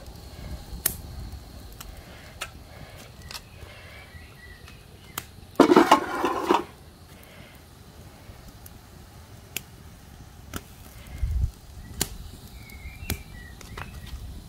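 Pot of pine cone syrup at the boil being stirred to keep it from boiling over: scattered light clicks and knocks, with a louder noisy burst of under a second about six seconds in.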